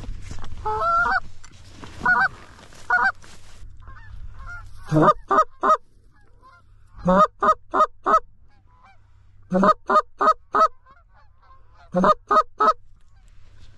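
Goose honks in quick bursts of three or four short notes, the bursts repeated every two to three seconds, after a few single longer honks in the first three seconds.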